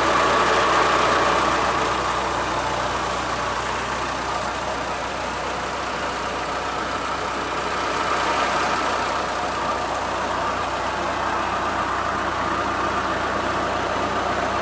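Fiat 640 tractor's diesel engine running steadily at constant speed under load, driving a 7-inch irrigation water pump through its PTO shaft and belt pulley.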